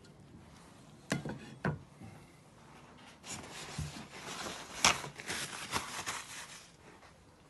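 A knife cutting through a rack of smoked pork ribs knocks twice on a wooden cutting board about a second in. A few seconds of scraping and rubbing against the board follow, as the knife and the cut ribs are shifted.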